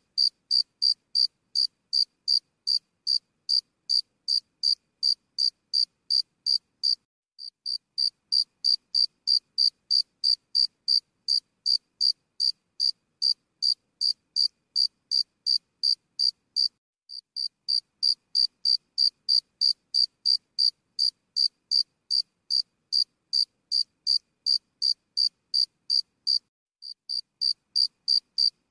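Rhythmic high-pitched insect chirping, about three short chirps a second, breaking off briefly about every ten seconds.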